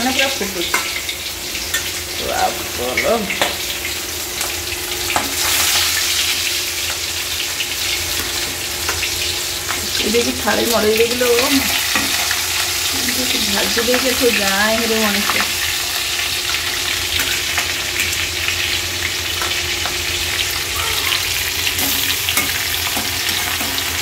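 Turmeric-coated fish pieces shallow-frying in hot oil in a steel kadai: a steady sizzle with scattered sharp crackles of spattering oil, and the scrape of a spatula turning the pieces.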